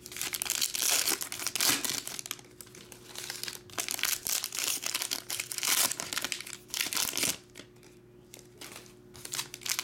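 Wrappers of 2021 Panini Playoff football card packs crinkling and rustling as they are handled and opened, in irregular bursts with a couple of quieter pauses.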